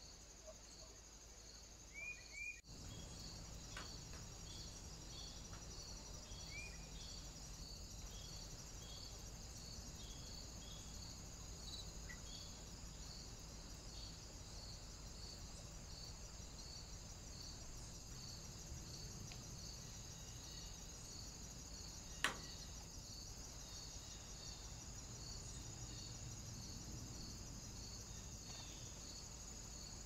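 Insects chirping steadily, a high, evenly repeated pulse about two or three times a second over a constant high trill. A few short high calls come near the start, and a single sharp click sounds about two-thirds of the way through.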